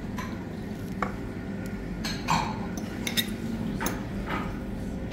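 Metal fork and spoon clinking and scraping against a ceramic plate while picking apart pieces of boiled sheep's head and trotters, with about six separate clinks, the loudest a little past two seconds in. A steady low hum runs underneath.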